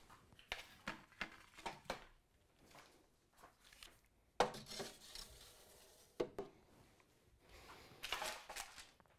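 Metal food trays sliding onto and clinking against the stainless-steel shelf rack of a Harvest Right home freeze dryer: a run of light scrapes and clatters, with sharper knocks about four and a half and six seconds in and a quick cluster near the end.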